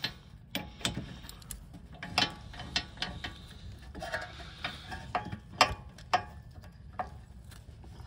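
Socket ratchet turning the 18 mm wheel-hub mounting bolts: irregular ratchet clicks and metal knocks as the bolts are run in.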